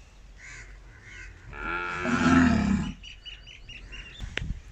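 A cow moos once, a loud, drawn-out call of more than a second, followed by birds chirping.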